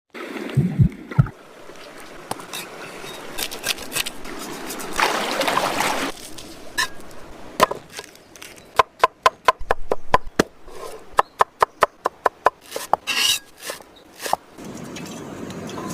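Food preparation sounds: a few low knocks, rustling, then a quick run of sharp chopping strokes, several a second, about halfway through.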